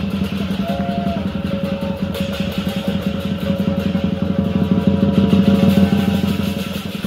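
Music with long held notes over a low, steady rumble that swells a little about five seconds in.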